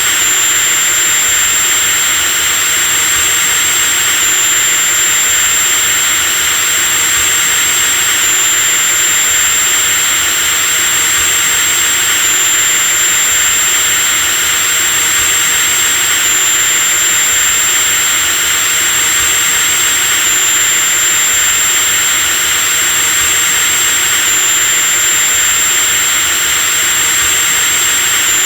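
Electric drill running steadily at full speed: a constant high whine over a hiss, the whine stepping slightly in pitch about every four seconds as the recording repeats.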